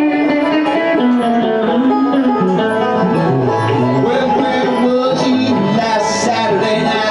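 Banjo and electric guitar playing a bluegrass instrumental passage live, with quick plucked notes.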